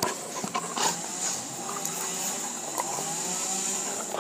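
A steady mechanical drone, like a motor running, with a faint high whine over it.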